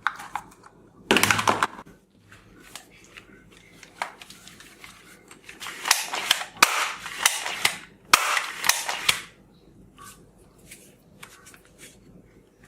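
Toy gun firing: sharp cracks and clicks, with a brief loud burst about a second in and two longer bursts of rapid shots about six and eight seconds in.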